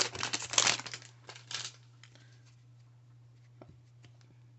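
Trading card pack wrapper being torn open and crinkled, a dense crackle that stops about a second and a half in.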